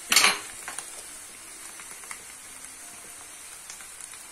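Içli köfte filling of onions and parsley frying gently in a pan: a steady soft sizzle with small crackles. A short loud scrape comes right at the start.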